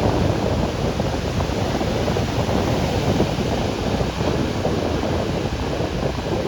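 Ocean surf washing onto a beach in a steady rush, with wind buffeting the microphone.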